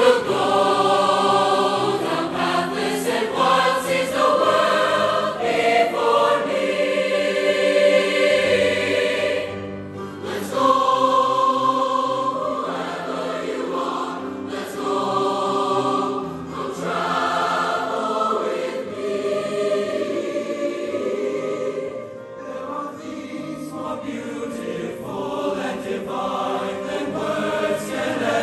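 Large mixed choir of young voices singing in parts, holding sustained chords, with brief breaks between phrases about ten seconds in and again a little past twenty seconds.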